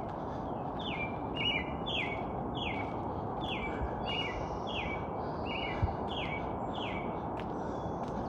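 A songbird calling over and over in woodland: a run of about ten short chirps, each sliding downward in pitch, some in quick pairs, over a steady background rush.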